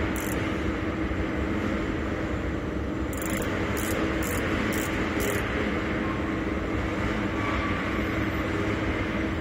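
Workshop machinery running steadily, a constant low hum and rumble, with a few faint light clicks, about two a second, between about three and five and a half seconds in.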